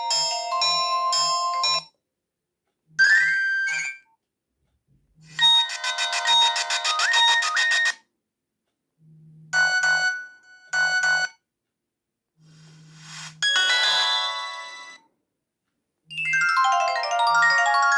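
Nokia 100 mobile phone ringtones played one after another: about six short electronic melodies, each cut off abruptly, with a second or so of silence between them.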